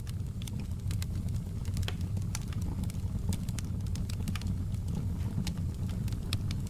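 Wood fire burning in a fireplace, crackling with frequent sharp, irregular pops over a steady low rumble of the flames.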